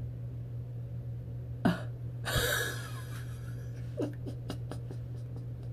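A woman's breathy exhale about two seconds in, followed near the end by a quick run of small clicks, over a steady low hum.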